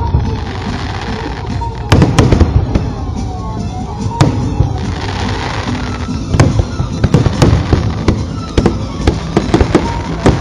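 Aerial fireworks shells bursting in sharp bangs: a cluster about two seconds in, a few single bangs, then a rapid run of bursts from about six seconds on.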